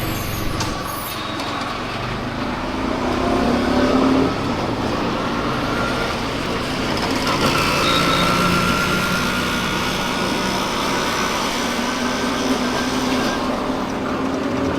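Motorcycle running on the road while being ridden, its engine note under a steady rush of wind and road noise.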